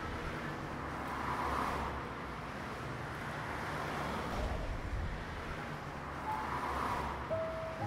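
Steady road-traffic noise that swells twice as vehicles pass, about a second and a half in and again near the end.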